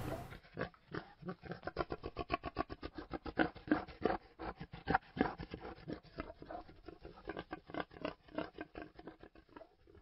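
Boar grunting in a fast, steady run of short grunts, about seven a second, while it is stimulated by hand for semen collection. The grunting fades out near the end.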